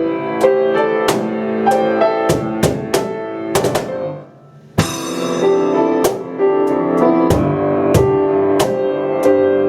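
Live instrumental music: piano chords and melody with percussion hits roughly twice a second. The music breaks off briefly about four seconds in, then comes back in with a loud hit.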